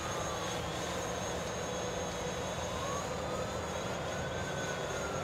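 Distant DJI Mavic Pro quadcopter fitted with low-noise propellers, flying: a steady whirring hum with a faint whine that slowly rises in pitch and then falls.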